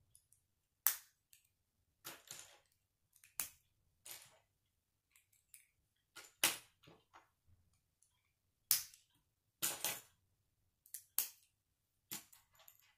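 K'nex plastic parts clicking and snapping as white connectors and orange spacers are pushed onto a blue plastic rod: about a dozen sharp clicks, irregularly spaced, roughly a second apart.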